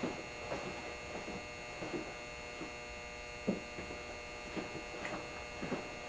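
Steady electrical mains hum from a standard 80% gas furnace powered up in standby, waiting for a call for heat, with a few faint irregular ticks.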